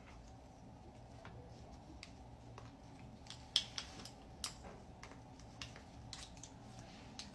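Clamp-style curling iron handled while hair is wound on it: scattered light metallic clicks of the spring clamp opening and closing, the loudest about halfway through.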